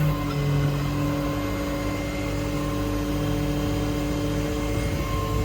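Cummins 6.7 diesel running at a steady speed, driving the hydraulic crane, with a steady whine from the hydraulic system.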